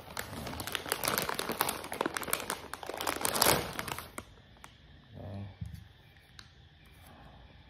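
Plastic packaging crinkling and rustling in the hands as a DisplayPort-to-HDMI adapter cable is unwrapped, dense and crackly for about four seconds, then dying down to a few light handling clicks.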